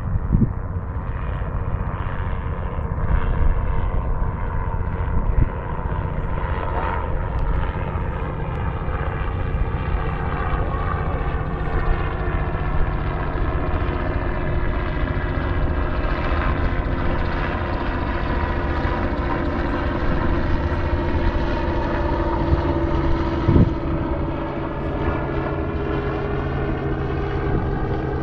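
Aircraft engine droning steadily overhead, with a slowly shifting pitch as it passes.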